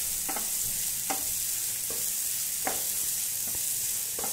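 Chopped onions and green chillies frying in oil in a pan, with a steady sizzle, while a wooden spatula stirs and scrapes through them about once a second.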